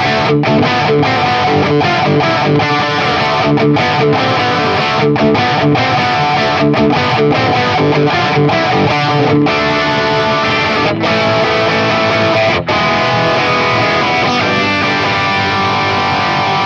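Electric guitar music: a riff broken by many short stops, giving way in the second half to held, ringing notes.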